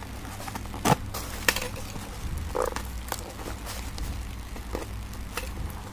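Clear plastic bag crinkling and rustling as it is handled and opened, with a few sharp crackles, the loudest just under a second and about a second and a half in, over a steady low electrical hum.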